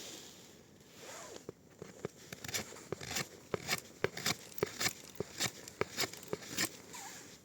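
A knife shaving thin curls off a piece of wood to make tinder shavings: a quick series of sharp scrapes, about two a second.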